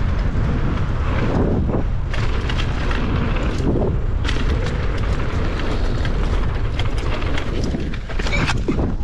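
Wind buffeting an action camera's microphone as a mountain bike descends a dirt trail, with the tyres rolling over dirt and scattered short rattles and knocks from the bike over bumps.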